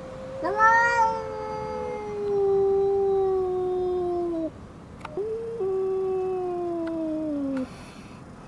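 Domestic cat yowling in a standoff with another cat: two long, drawn-out calls, the first about four seconds and the second about two and a half, each sliding slowly down in pitch.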